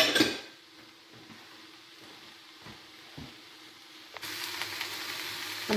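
A short knock, then sliced onion, mushrooms and courgette frying in a pan: a faint hum at first, then from about four seconds in a steady, louder sizzle.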